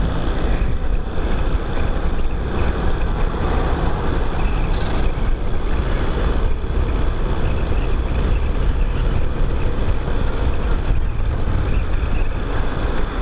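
Chinese-made motorcycle riding along a city street: engine running under way, heard as a steady rumble mixed with wind on the microphone.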